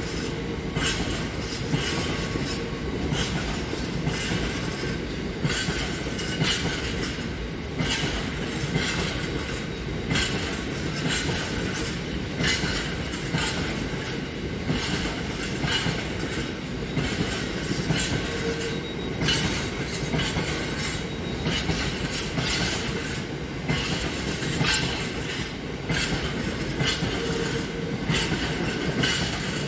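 A GBRf freight train's covered hopper wagons rolling steadily past, a continuous rumble with wheels clicking over rail joints many times a second.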